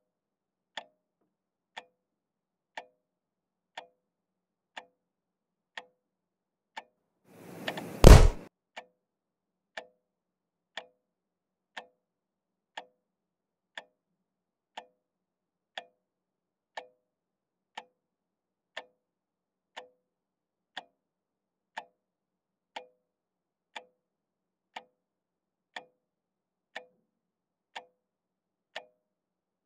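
A clock ticking steadily, about one tick a second. About seven seconds in, a rush of sound swells for under a second and ends in a loud, sharp thump.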